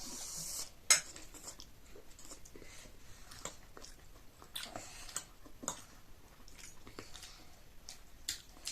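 Chewing chow mein noodles close to the microphone, with scattered small mouth smacks and clicks. A sharp click about a second in is the loudest sound.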